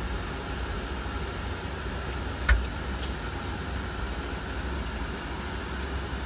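A single sharp knock about two and a half seconds in, with a couple of faint clicks just after, over a steady low hum.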